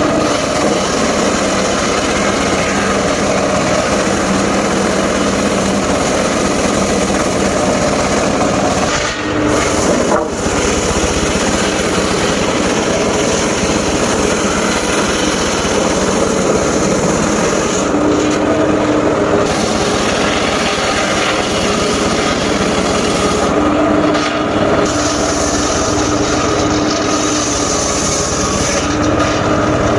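Engine-driven mobile circular sawmill running loud and steady while sawing mahogany and waru logs, with brief dips in loudness about nine and ten seconds in.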